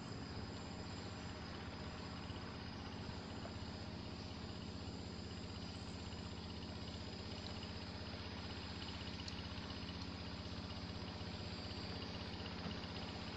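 Insects trilling steadily in high, unbroken tones, over a low, steady hum.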